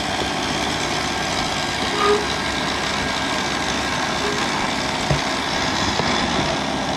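Stand mixer's motor running steadily with the dough hook turning, mixing flour into water at the start of kneading a bread dough.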